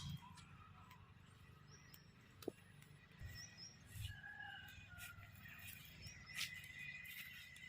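Near silence: faint outdoor ambience with a few faint high bird chirps and an occasional soft click.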